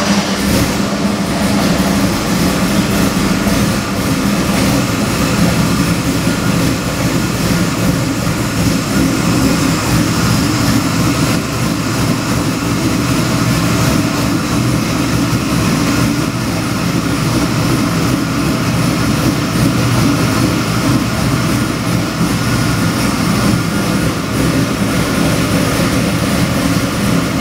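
LS3-based 427 cubic inch stroker V8 with a hydraulic roller cam and Holley Sniper fuel injection, running on an engine dyno at a steady idle of about 1,000 rpm.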